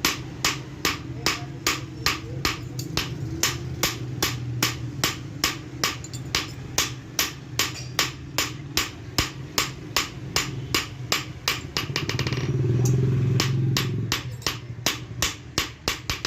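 Blacksmith's hammer striking metal on an anvil in a steady forging rhythm, about two to three blows a second, with a few quicker strikes about three-quarters of the way in. A low steady hum runs underneath and swells briefly near the end.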